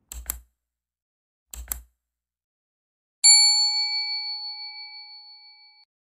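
Subscribe-button animation sound effects: two quick double mouse clicks, then a single bell ding about three seconds in that rings out and fades away over about two and a half seconds.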